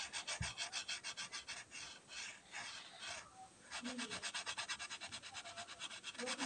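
A finger rubbing chalk on a chalkboard to erase part of a drawing: quick back-and-forth scratchy strokes, several a second, with a short pause a little past halfway.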